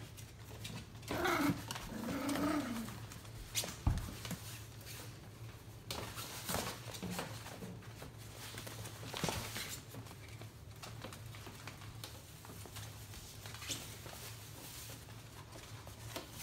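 Five-week-old Labradoodle puppies playing: a few short puppy vocal sounds in the first few seconds, then scattered light clicks and knocks.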